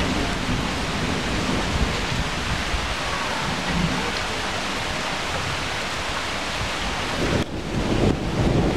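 Steady rain falling, a dense even hiss with a low rumble underneath. It drops out for a moment near the end, then comes back a little louder.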